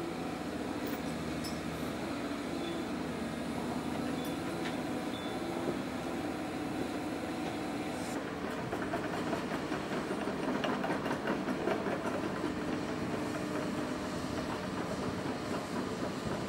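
Caterpillar excavator's diesel engine running steadily, with a rapid metallic rattling and clanking that sets in about eight seconds in as the machine works.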